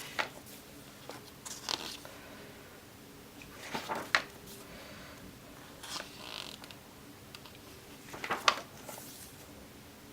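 Pages of a paper instruction booklet being turned and handled: a series of short paper rustles and swishes a second or two apart.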